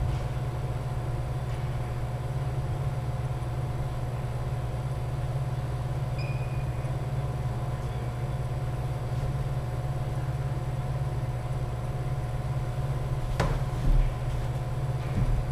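A steady low machine hum with faint steady tones above it. About thirteen seconds in, a badminton racket strikes the shuttlecock once with a sharp crack, and a low thump follows.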